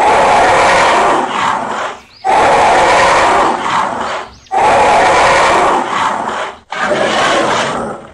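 Dinosaur roar sound effect of a T. rex, repeated: three long, loud roars of about two seconds each, then a shorter one near the end.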